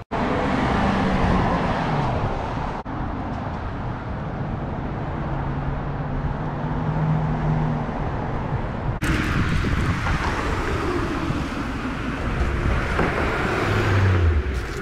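Street traffic: cars driving past with engine and tyre noise, one passing close near the end with a falling engine note. The sound jumps abruptly twice, at edits.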